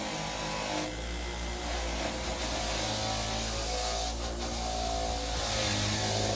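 Power wire wheel running with a steady motor hum while a heavy-duty socket is pressed against it to brush off rust; the rushing, scrubbing noise swells and eases several times as the pressure changes.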